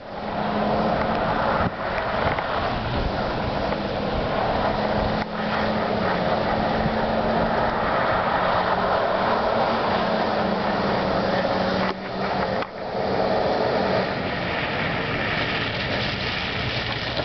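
Ford F-250's 6.8-litre Triton V10 gasoline engine held at high revs under load as the pickup drives in circles on snow, with the rush of spinning tyres. The sound is steady, dipping briefly a few times.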